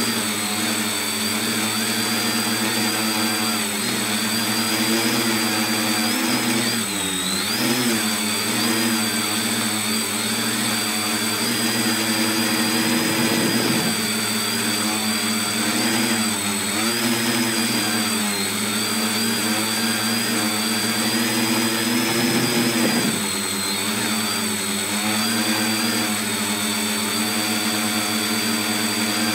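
Tricopter's electric motors and propellers buzzing close up, heard from a phone mounted on the craft. The pitch wavers up and down with throttle changes and drops briefly a few times before climbing back, with a thin steady whine above it.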